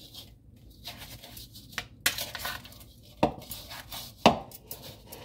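Metal kitchen tongs clacking and scraping in a plastic mixing bowl as seasoned raw chicken wings are tossed. A run of sharp knocks, the loudest two about three and four seconds in.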